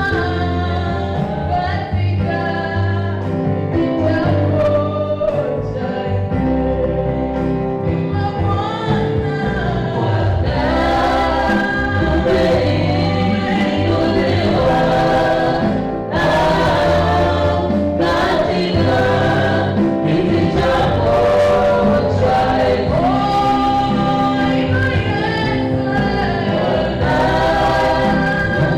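Gospel music: a choir of mixed voices singing over a steady bass line.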